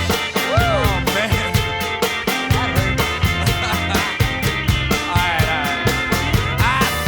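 Instrumental break of a rock song: a steady drum beat under a lead line that bends up and down in pitch.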